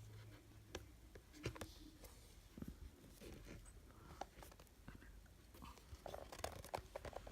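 Faint handling noises: scattered light clicks and soft rustles of paper and packaging being handled.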